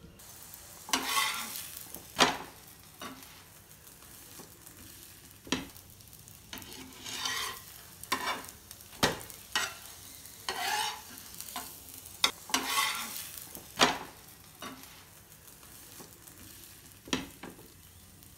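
Metal spatula scraping and tapping on a flat tawa as wheat polis frying in ghee are flipped and pressed: a series of sharp clicks and short scraping swishes, with frying sizzle in between.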